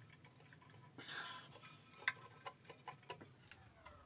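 Faint clicks and light knocks of a plastic toilet flush valve being pressed down and rotated to lock into a porcelain tank, with a brief rub about a second in and the sharpest click about two seconds in.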